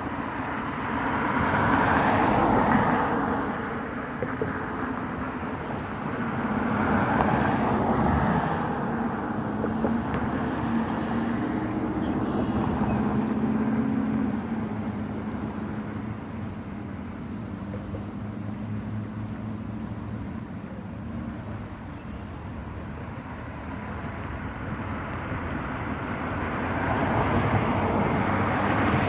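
Road traffic passing by over a steady background rush. Vehicles swell up and fade away about three times, and a low engine hum comes through near the middle.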